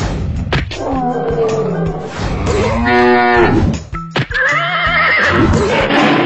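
Cartoon animal sound effects: a cow mooing about three seconds in, then a higher, wavering animal call, with sharp clicks and background music underneath.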